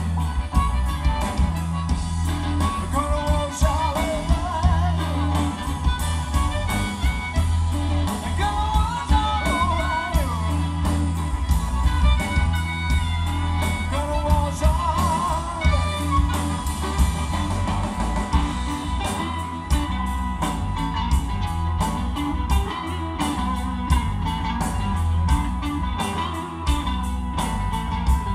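Live electric blues band: a Stratocaster-style electric guitar plays wavering lead lines over bass guitar and drums. In the second half the drums keep a steady, even beat.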